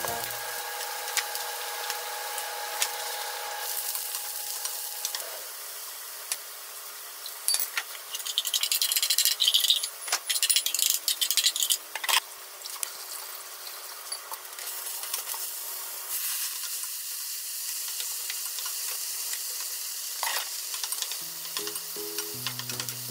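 Sliced eggplant sizzling as it fries in a nonstick frying pan, with scattered clicks. For a few seconds in the middle there is loud rapid clinking as seasoning sauce is stirred in a small bowl. Light background music plays at the start and near the end.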